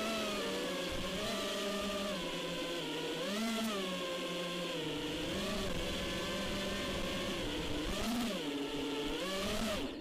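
FPV quadcopter's motors and propellers whining, the pitch rising and falling several times as the throttle changes.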